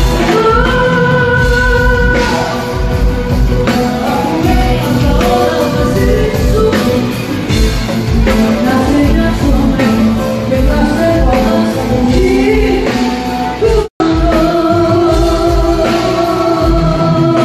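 Live amplified Greek popular music with a singer's voice over a band and a steady beat. It drops out for an instant about fourteen seconds in, at a cut in the recording.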